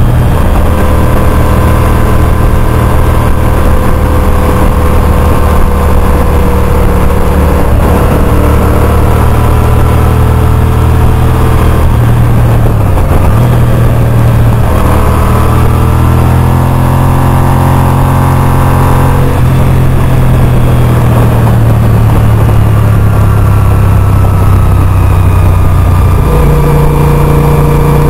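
Honda RC51 sport bike's V-twin engine running at road speed, with wind rushing past. Its note dips briefly about halfway through, climbs again as the throttle opens, and steps up in pitch near the end.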